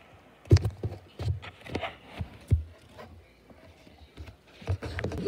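Irregular dull thumps and knocks on a hard surface. They come in clusters through the first three seconds and again near the end.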